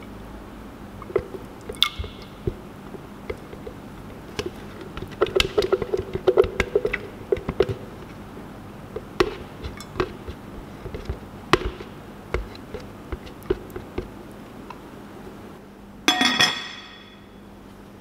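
Light clicks and taps of a plastic jug and ceramic slow-cooker crock being handled as oil is poured in, then a single ringing clink about sixteen seconds in that dies away within a second.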